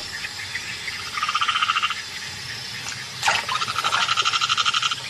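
Frogs calling at the water's edge with a fast pulsing trill in two spells, the first about a second in and a longer one from about three and a half seconds, between them and at the end a quick call sweeping sharply downward.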